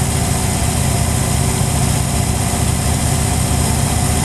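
Motorcycle engine running steadily at low road speed, a low pulsing rumble, with wind rushing over the microphone.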